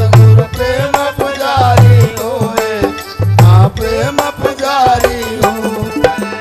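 Devotional folk bhajan: a man singing over the sharp clicks of wooden kartal clappers, with a heavy hand-drum beat about every one and a half seconds.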